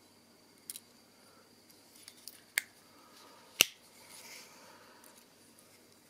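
Victorinox WorkChamp Swiss Army knife being handled: a couple of light metallic clicks, then one sharp snap about three and a half seconds in as a folded tool springs shut into the handle, followed by faint rustling.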